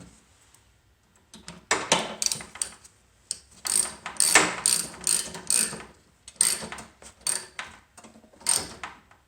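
Ratchet wrench clicking in short back-and-forth strokes, about ten bursts with pauses between, as a new spark plug is screwed into a two-stroke Toro snow blower engine.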